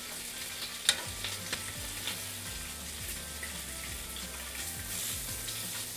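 Pork belly strips sizzling and spitting fat on a hot grill pan over a butane stove, with a sharp click about a second in.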